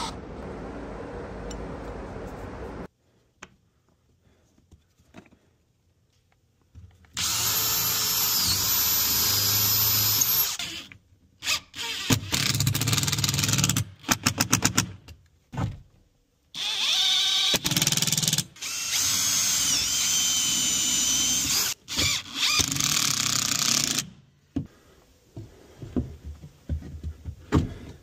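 Power drills running in several separate bursts. A steady run for the first few seconds is followed by longer loud runs of about three and about seven seconds, whose whine sags and recovers under load. Between them a cordless drill gives short bursts and a quick string of trigger pulses as it drives a screw.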